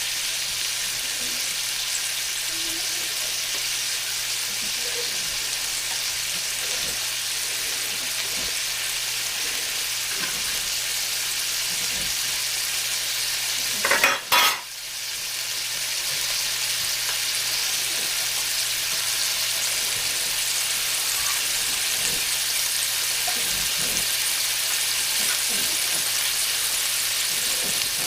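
Burger patties sizzling steadily in a hot cast iron pan. About halfway through there is a brief louder burst, after which the sizzle drops and slowly builds back up.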